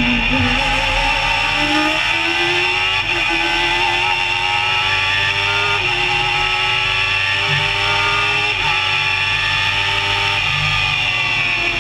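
Barqueta Outeda MK1 racing car's engine at full throttle from on board, its pitch climbing through the gears with an upshift roughly every three seconds, then falling near the end as the throttle eases off.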